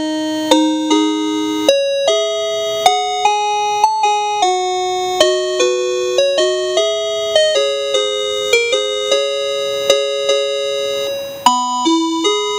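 Patlite EMB-100 melody horn playing a loud electronic chime melody as a wake-up alarm, each note struck sharply and fading. About 11 seconds in the tune breaks off briefly and a new, lower phrase starts.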